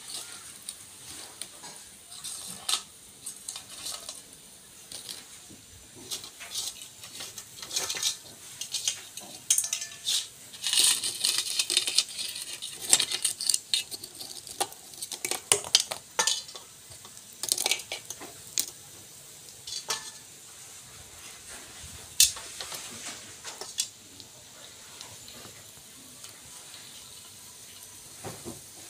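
Hot oil sizzling steadily in a wok as kembang goyang rose cookies fry, with many sharp clinks and clatters of metal utensils and crisp cookies handled in a steel pot, busiest through the middle.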